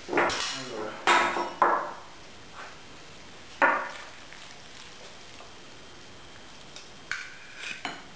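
Metal fork and steel ladle clinking against a glass bowl while twirling spaghetti: four sharp clinks in the first four seconds, then a few fainter clicks near the end.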